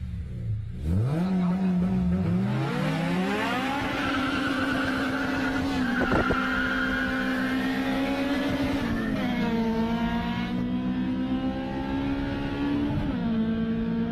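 Honda K20 inline-four engine revving hard: the pitch climbs steeply over the first few seconds, holds high, and dips briefly about nine seconds in and again near the end, as at gear changes.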